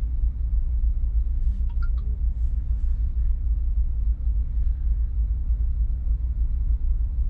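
Diesel truck engine idling: a steady low rumble.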